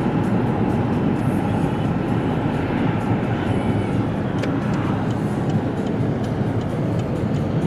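Steady road and engine noise heard inside a moving car's cabin, a low even rumble from the car driving at speed on asphalt.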